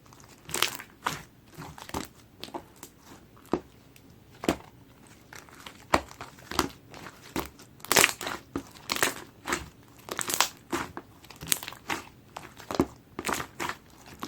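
Hands squishing and pressing clear jiggly slime, giving irregular sticky crackles and pops.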